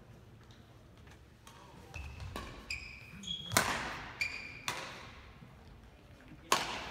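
Badminton rally: rackets hitting the shuttlecock in sharp cracks that ring in the hall, the loudest about halfway and near the end, with short high shoe squeaks on the court floor between the shots.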